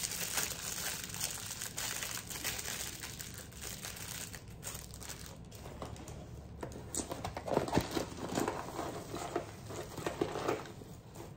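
Paper and packaging crinkling and rustling as small items are dug out of a tissue-fringed piñata. The rustle comes in uneven handfuls and is loudest about seven to eight seconds in.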